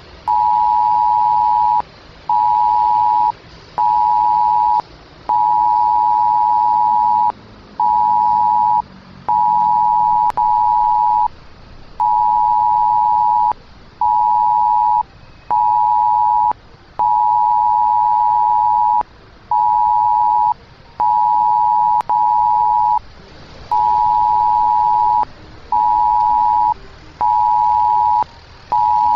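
Emergency alert attention tone: a steady electronic beep keyed on and off in a long run of pulses of uneven length, some about a second and some about two seconds, with short gaps between.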